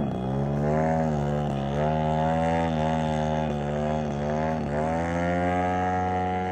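A didgeridoo playing one steady low drone, its tone wavering and dipping briefly every second or so.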